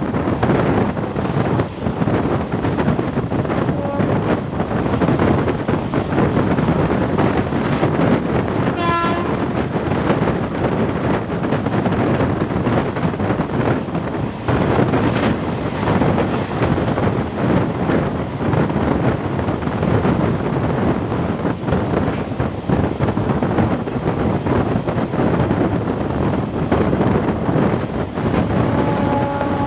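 Steady running noise of an ICF passenger coach on the move. Over it the WAG-9 locomotive's horn sounds: a short toot about nine seconds in, a faint one around four seconds, and another starting near the end.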